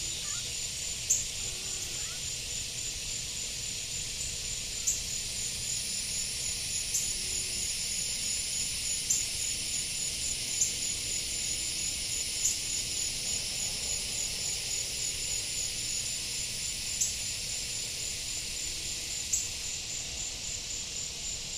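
Field insects, chiefly crickets, singing in a steady high chorus with a pulsing high chirp several times a second. Sharp, irregular ticks sound every couple of seconds and are the loudest sounds.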